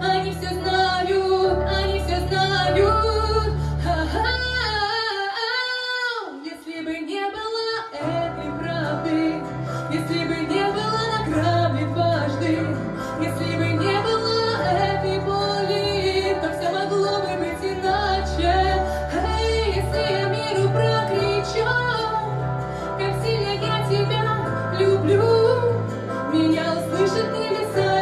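A woman singing into a microphone over an instrumental backing track, with long held and ornamented notes. The bass drops out for a few seconds about five seconds in, leaving her voice gliding over lighter accompaniment.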